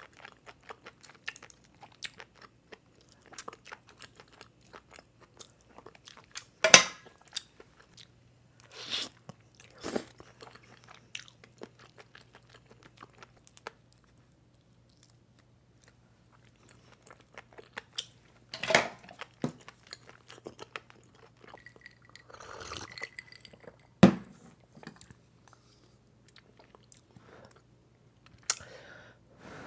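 Close-miked chewing of baked mussels topped with mayonnaise and flying fish roe: wet mouth clicks and the roe crunching, with a handful of louder crunches and one sharp knock about three-quarters of the way through.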